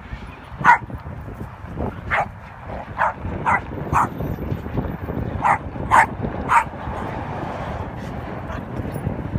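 Dogs barking in short, sharp yips during rough play, about eight of them at uneven intervals in the first seven seconds, over a steady low rumbling noise.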